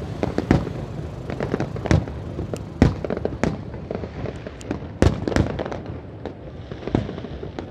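Fireworks display: aerial shells bursting in quick, irregular succession, with sharp bangs of varying strength, the loudest about three seconds in and again about five seconds in.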